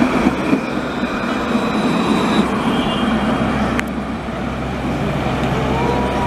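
Electric Alstom Citadis tram passing close by, its wheels rumbling steadily on the rails with a faint high whine. A sharp click about four seconds in, after which the sound settles to a steadier low hum with street noise.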